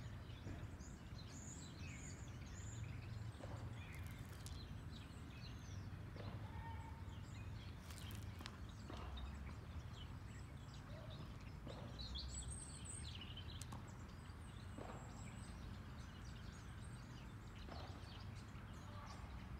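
Faint outdoor background noise with scattered short, high bird chirps and a few soft taps.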